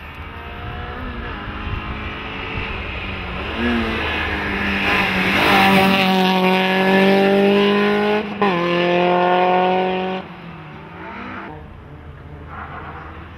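Peugeot 205 hillclimb car with a Mi16 16-valve four-cylinder engine accelerating hard uphill past, the engine note climbing through the revs with a quick upshift about eight seconds in, then climbing again. It is loudest as the car passes close, stops abruptly about ten seconds in, and a fainter engine sound follows.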